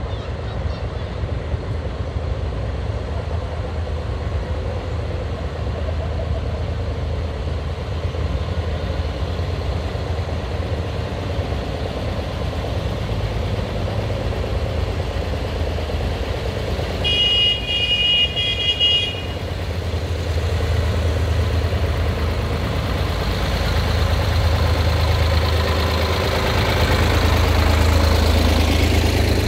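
Engines of vintage tractors running as they drive slowly past in a line. The low engine sound grows louder toward the end as one tractor passes close. About two-thirds of the way through, a high horn sounds for about two seconds.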